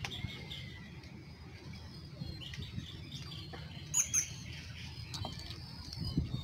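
Small birds chirping and calling in the trees, with scattered short chirps and a sharper, louder call about four seconds in.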